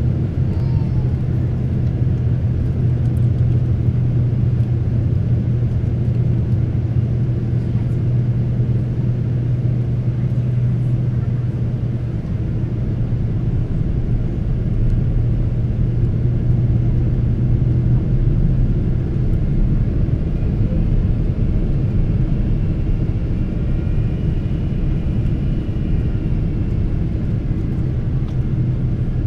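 Steady cabin noise inside a Boeing 777-300 airliner in flight: a loud, even rumble of engines and airflow with a steady low hum.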